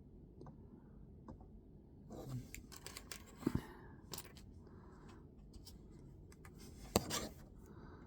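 Packaging being opened and handled by hand: short rustles and crinkles with a few sharp clicks, the loudest about three and a half and seven seconds in.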